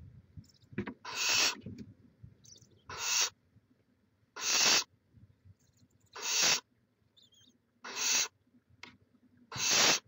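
Barn owls in a nest box giving rasping, hissing calls: six hisses of about half a second each, roughly one every second and a half.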